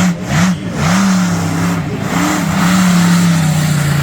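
A large vehicle engine revving in quick up-and-down blips, then holding a steadier high note before dropping off near the end.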